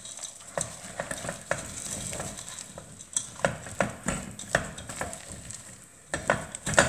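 Wooden spoon stirring chopped toasted almonds through hot caramel in a stainless steel pot, a dense sugary mass for almond brittle (cupeta). Its strokes scrape and clack against the pot about two to three times a second, with a brief pause about six seconds in.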